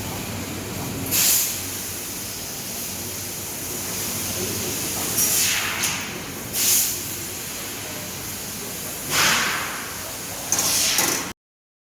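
Welding work in a workshop: a steady machine noise with about five short hissing bursts, after which the sound cuts off abruptly near the end.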